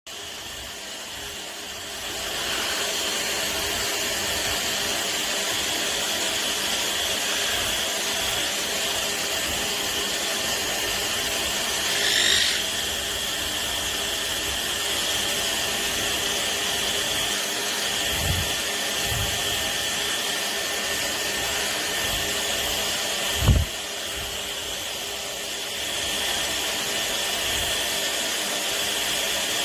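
Hair dryer running steadily, a whirring hiss with a high whine, used to dry the birds' wet feathers. The whir starts about two seconds in and rises to a steady level. There is a brief louder sound about twelve seconds in and a sharp thump at about twenty-three seconds.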